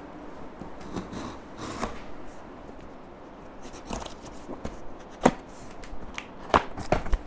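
A knife slicing through packing tape on a cardboard carton, with scratchy scraping and rustling of the cardboard and a few sharp knocks against the box, the loudest a little past the middle and two more near the end.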